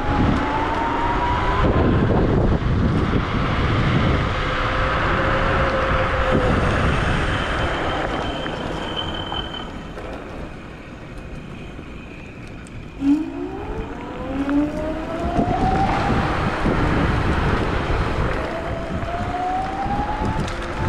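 Wolf Warrior electric scooter's dual 1200-watt motors whining under wind noise on the microphone, the whine rising in pitch as the scooter speeds up. It eases off about ten seconds in, then climbs again from about thirteen seconds as the scooter accelerates.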